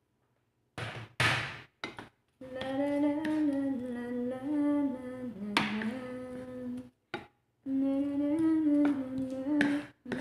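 A woman humming a tune without words: long held notes that slide slowly up and down, in two phrases with a short break between them. A couple of brief hissing noises come just before the humming starts.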